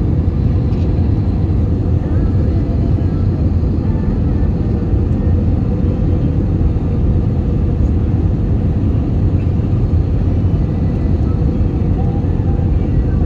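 Steady, loud roar of an airliner's jet engines and rushing air as heard inside the passenger cabin in flight, deep and even throughout.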